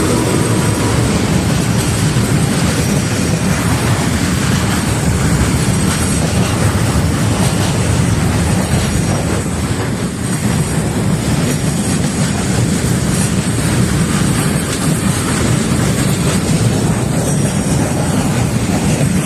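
A train running past close by: a loud, steady low rumble of the train and its wheels on the rails that carries on without a break.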